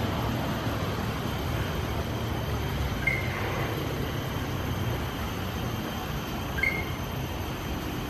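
Greater racket-tailed drongo calling: two short, clear whistled notes about three and a half seconds apart, the second with a quick lower note just before it. Under them runs a steady low rumble.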